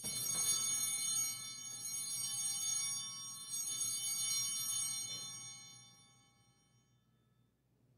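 Altar bell rung at the elevation of the chalice after the consecration, ringing out clear and high and fading away about six seconds in.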